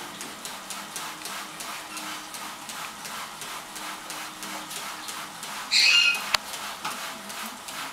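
A Pionus parrot gives one short squawk about six seconds in, over a steady hiss.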